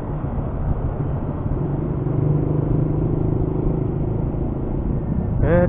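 Motorcycle engine running at a steady cruise, heard from the rider's seat along with road and traffic noise. A chanting voice starts right at the end.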